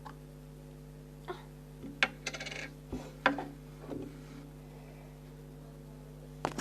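Several light knocks and clicks of small hard objects being handled, with a brief rattle about two seconds in, over a steady low hum.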